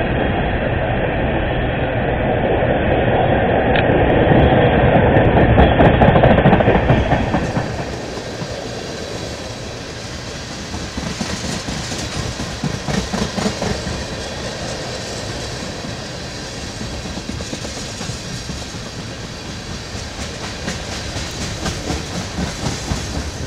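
Freight train of tank cars rolling past: a steady rumble of steel wheels on the rails, with the wheels clicking over rail joints. The sound drops abruptly and becomes thinner and brighter about seven seconds in.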